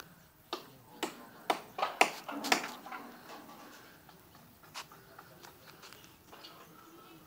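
Hammering from building work: a run of sharp knocks about two a second, loudest around two seconds in, then a single knock a couple of seconds later.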